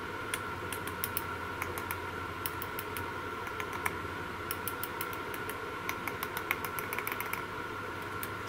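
Small, irregular clicks of metal alligator clips and keys being fingered and touched together on top of a car battery, over a steady faint hum.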